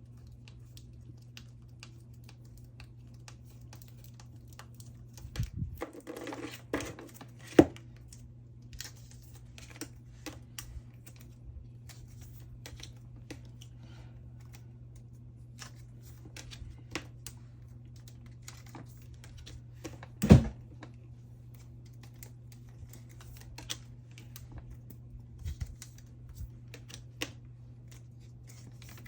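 Photocards being handled and slid out of plastic sleeves: scattered small clicks and taps, a crinkling rustle about six seconds in, and two sharper knocks, over a steady low hum.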